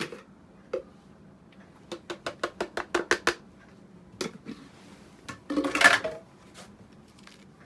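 Quick light clicks, about six a second, as a plastic jar of compounding powder is tapped and shaken over a stainless-steel capsule-filling plate. About six seconds in comes a louder, brief rustle as a shirt sleeve brushes close to the microphone.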